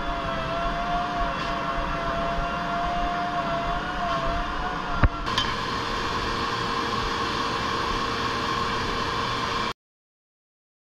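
Woodworking shop machinery running steadily, a hum and hiss with a steady whine over it. About five seconds in there is a click and the whine shifts to a different pitch, and the sound cuts off suddenly near the end.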